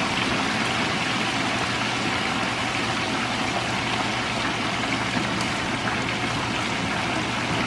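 Whole chicken deep-frying in coconut oil, the hot oil sizzling and bubbling vigorously in a steady crackling hiss.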